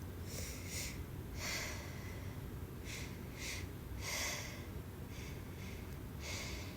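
A person sniffing and breathing through the nose in a series of short, hissy breaths, about eight spread over several seconds.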